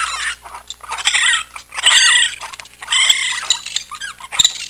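Raccoon calling: a run of high, wavering chittering calls in clusters about a second apart, with one sharp click near the end.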